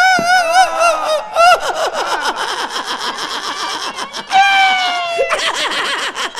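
A man's mock wailing through a stage microphone: drawn-out cries that fall in pitch and waver, broken up by quick stuttering sobs, with a second long falling cry a little past the middle.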